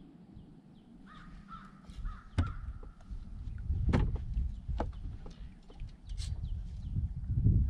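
A bird cawing, with several sharp knocks and low rumbling.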